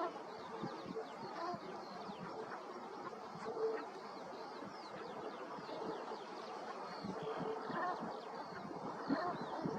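A flock of brent geese calling together: many overlapping short, low calls forming a steady chatter.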